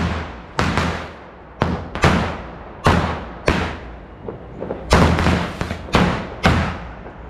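Firecrackers going off: about ten sharp bangs at irregular intervals, each trailing off quickly.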